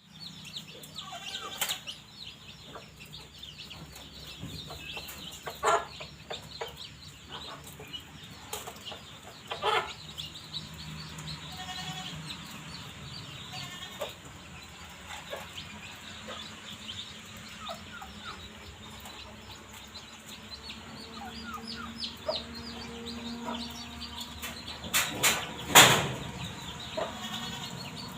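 A flock of chickens clucking and chirping without pause, with a few louder calls standing out now and then and the loudest cluster of calls near the end.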